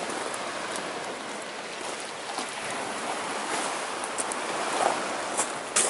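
Sea waves washing over a rocky shore, a steady rushing sound, with a few faint clicks and a sharper one near the end.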